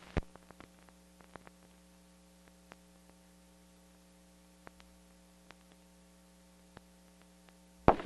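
Faint steady electrical hum with scattered clicks and pops, the sound of an old film or tape transfer's blank stretch; one sharper click comes just after the start, and a loud knock near the end.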